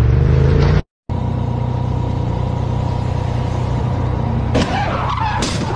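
Steady car engine and road rumble that breaks off for a moment about a second in, then carries on. Near the end comes a short knock and a brief wavering sound.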